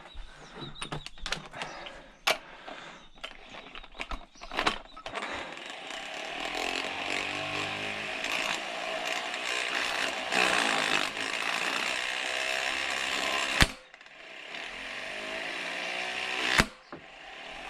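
Impact wrench hammering on a flywheel puller bolt for several seconds after some light tool clatter, then two sharp loud bangs a few seconds apart.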